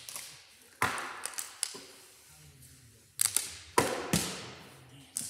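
A plastic water bottle knocking and clattering against a wooden table and the floor as it is flipped and dropped. There is a sharp knock about a second in with lighter rattles after it, then several more knocks in the last two seconds.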